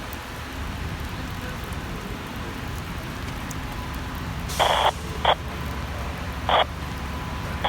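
Steady hiss and crackle of a fire dispatch radio scanner between transmissions. From about halfway through come a few short, sharp radio bursts: one longer, then two quick ones.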